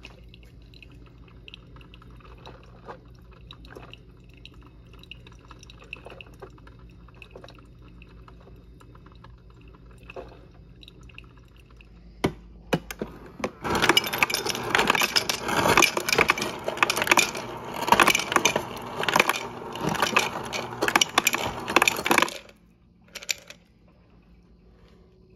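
A Black+Decker drip coffee maker hums faintly with small drips and gurgles. A couple of clicks follow, and from about 14 s a refrigerator door ice dispenser runs, loudly clattering ice cubes into a ceramic mug for about eight seconds. It stops suddenly, followed by one more click.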